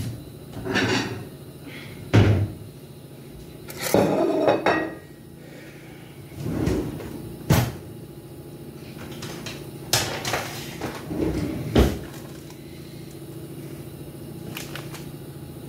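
Kitchen cupboard and crockery knocks: a string of separate knocks and clatters as a plate is fetched and set down on the counter, over a steady low hum.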